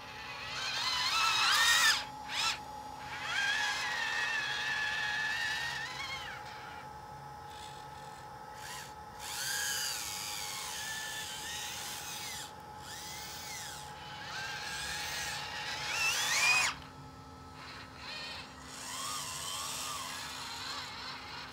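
Small electric track-drive motors of an RC tracked loader whining as it drives, their pitch rising and falling with speed in several spells. It is loudest about two seconds in and again around sixteen seconds, over a faint steady electronic hum.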